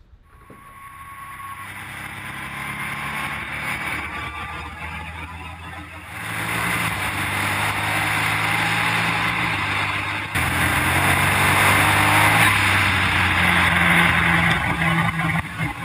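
Formula Ford's 1.0-litre turbocharged three-cylinder EcoBoost engine running hard at speed, heard from on board with heavy wind and road noise. It fades in at first, then gets louder in two steps, about six and ten seconds in.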